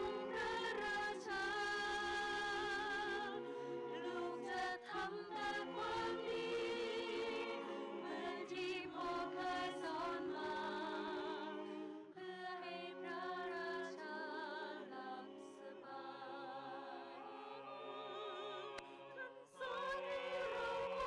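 Mixed choir of men and women singing a slow song in harmony, a cappella, the sustained voices wavering with vibrato. The singing softens about halfway through and swells again near the end.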